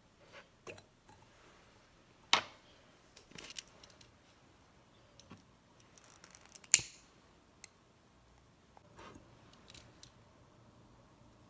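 Handling noises from small objects: scattered light clicks and knocks, with two sharp, louder clicks about two and a half and about seven seconds in.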